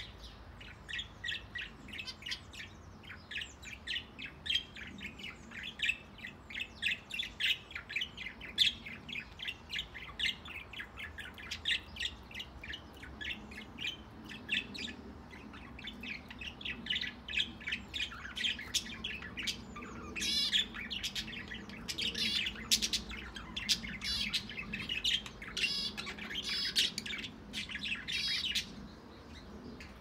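A mixed flock of budgerigars and zebra finches calling: a rapid, continuous stream of short chirps, joined by denser warbling chatter from about two-thirds of the way in.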